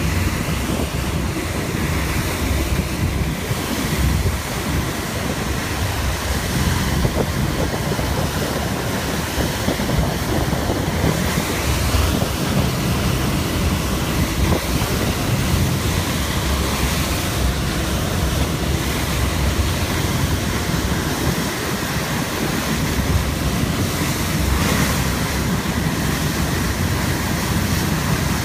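Wind buffeting the microphone over the steady rush of waves and churned water, recorded aboard a boat running fast through choppy sea.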